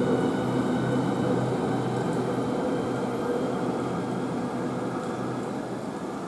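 Southeastern Class 395 high-speed electric train pulling away, its motor hum and faint high whine fading steadily as it leaves.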